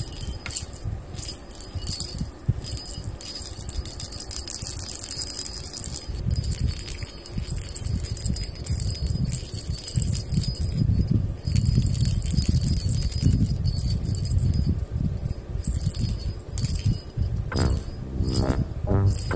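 A small bell in a cat's toy ball jingling and rattling in short shakes, over a low rumble. Cheerful background music comes in near the end.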